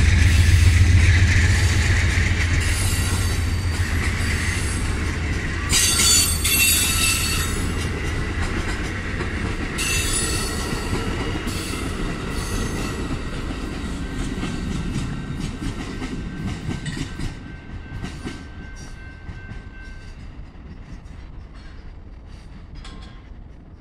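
Amtrak passenger coaches and a trailing baggage car rolling past on the rails with a low rumble. High wheel squeals come about six and ten seconds in, then the wheels click over the rail joints as the train moves away and fades.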